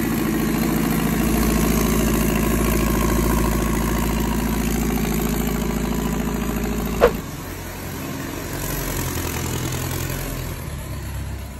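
Turbocharged Toyota forklift engine idling steadily, with a single sharp pop about seven seconds in, after which it runs quieter.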